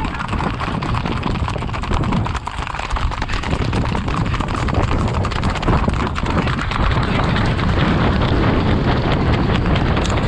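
Horse hooves beating quickly in a continuous, dense clatter at a fast gait, with a low rumble underneath, getting a little louder about halfway through.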